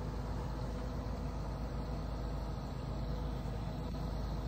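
Mobile crane's diesel engine running steadily while it holds a manufactured home section aloft, a continuous low rumble.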